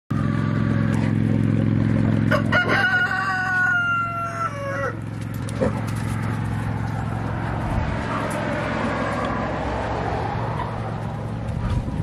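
A rooster crows once, a call of about two and a half seconds starting a couple of seconds in, over a steady low hum.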